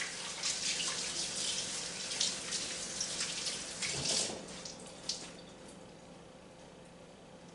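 Kitchen tap running and splashing over a halved butternut squash as it is rinsed in a stainless steel sink; the water stops about five seconds in.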